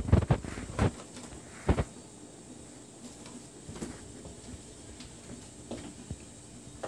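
A quick cluster of knocks and rustles in the first second, then one sharp knock near two seconds in, with only faint scattered clicks after that.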